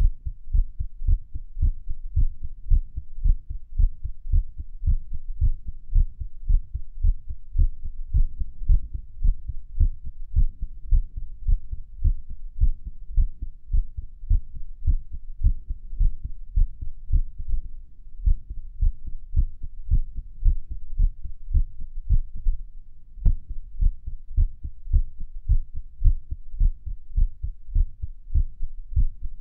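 Human heartbeat recorded close up at Erb's point on the chest: a steady run of deep lub-dub thumps, which the uploader calls an irregular heartbeat. One brief faint click about two-thirds of the way through.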